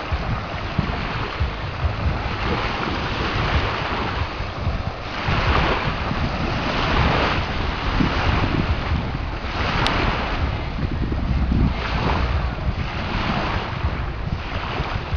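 Wind buffeting the microphone with a low rumble over shallow sea water washing at the shore, the hiss of the water swelling and fading every second or so.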